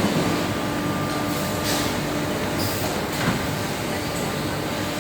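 Mazak Nexus 4000-II horizontal machining center running: a steady mechanical hum with a couple of constant tones, broken by a few brief hisses between about one and a half and three seconds in.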